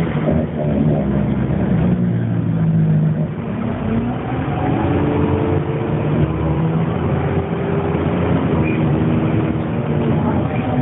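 Dennis Dart bus engine running under load, its pitch rising, dropping briefly a little over three seconds in, then climbing steadily again as the bus pulls away through the gears.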